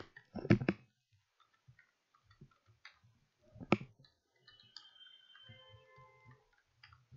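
Computer keyboard keys clicking as a short phrase is typed: scattered, fairly faint keystrokes, with the loudest clicks about half a second in and again near four seconds.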